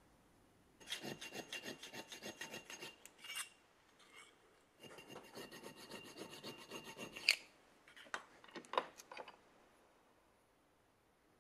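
Small round file rasping back and forth in a hole in a thin metal disc clamped in a vise, enlarging it into a slot. Two runs of quick, even strokes, then a few light clicks near the end.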